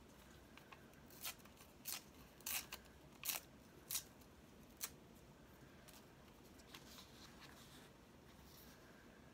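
Magazine paper being handled and torn by hand: about six short, sharp crackles and rips in the first five seconds, over a faint steady hiss of rain.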